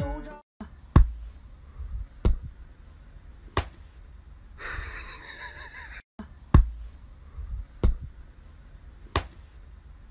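Six sharp knocks, evenly spaced about a second and a quarter apart: three early, then after a short break three more, with a soft hiss between them.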